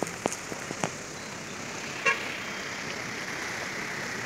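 Steady rain noise with rushing water, raindrops tapping close by in the first second, and a single short vehicle horn toot about two seconds in.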